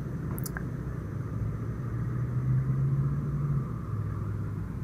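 Low steady engine hum that rises slightly in pitch for a second or so and then drops back, with a faint click about half a second in.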